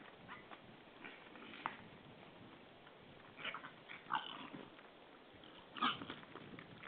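Wild boar giving short calls, a handful of them scattered a second or so apart, the loudest near the end.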